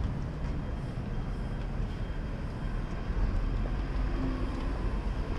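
Steady low rumble of city street traffic beside a sidewalk, with no single distinct event standing out.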